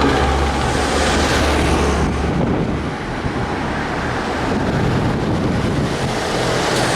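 A heavy vehicle passing on the road: a low engine drone that drops away about two seconds in, with tyre and road noise and wind buffeting the microphone.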